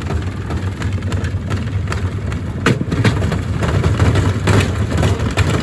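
Gorenje SensoCare washing machine running with heavy bricks in its drum: a steady low rumble with repeated knocks and bangs, growing louder about three seconds in.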